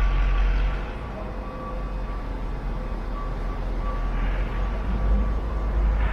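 Union Pacific diesel switcher locomotive rumbling as it moves a cut of covered hopper cars along the track, with a faint high tone coming and going.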